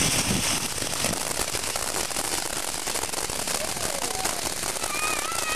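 Ground fountain firework spraying sparks, giving a steady, dense crackling hiss.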